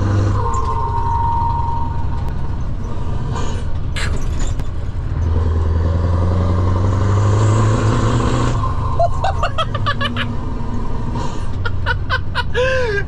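Scania 4-series 580 V8 lorry engine heard from inside the cab, pulling hard under acceleration. The engine note builds over several seconds, then falls away sharply about eight and a half seconds in. A man laughs and whoops near the end.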